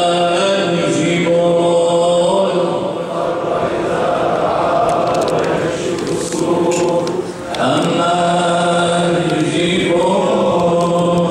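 Men chanting an Ashura mourning lament together in slow, drawn-out held notes. The phrase breaks off in the middle and a new one begins later.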